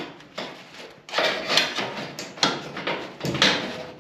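A thin strip of sheet steel scraping against the body's sheet metal as it is slid back and forth into a gap, test-fitting it as a filler strip. Several scraping strokes of about half a second each.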